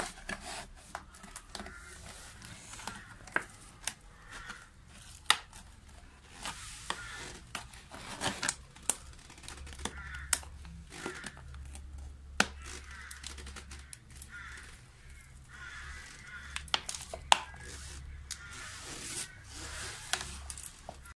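Thin plastic bottle crinkling and crackling with irregular sharp clicks as hands press onion sets into holes cut in its sides and pack soil around them.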